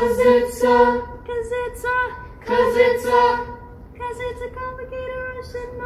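A small a cappella vocal group rehearsing, several voices singing held notes in harmony in short phrases with brief breaks between them.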